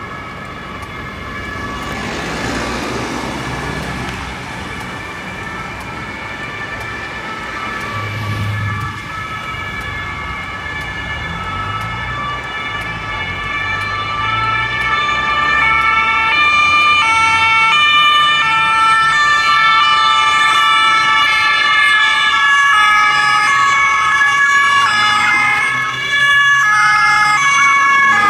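Two-tone Martinshorn sirens of German police patrol cars sounding continuously, the alternating high-low pattern growing louder as the cars approach. From about halfway, more than one siren overlaps at once, out of step.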